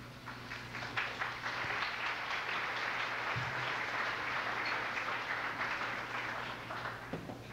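Audience applauding: the clapping starts within the first second, holds steady, and dies away near the end.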